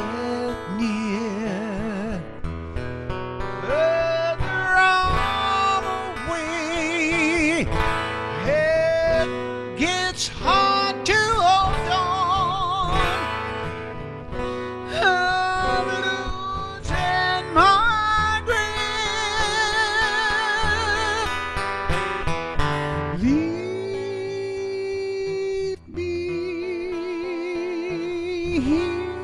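Guitar-accompanied song in a wordless break: a high melodic line slides into notes and holds them with vibrato over steady guitar playing.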